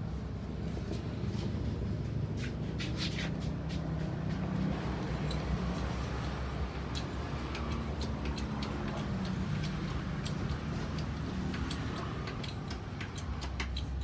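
Chery QQ311 engine running steadily, with scattered light ticks and clicks over it.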